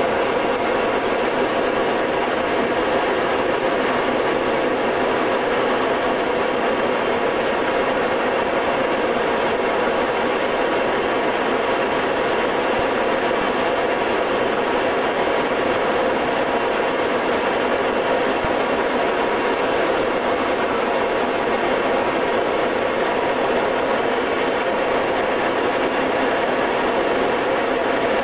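Short Tucano's Garrett TPE331 turboprop engine and propeller in flight, a steady, unchanging drone.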